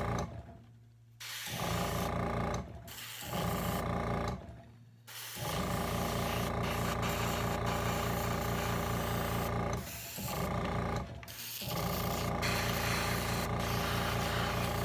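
Small airbrush compressor running with a steady hum and the hiss of the airbrush spraying paint, cutting out and starting again about four times.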